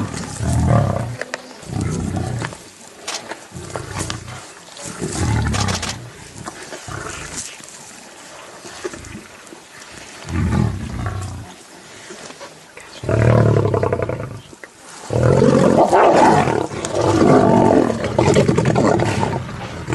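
Lions growling and snarling in repeated rough bursts, which run almost without a break over the last few seconds: feeding aggression as a pride crowds a zebra kill.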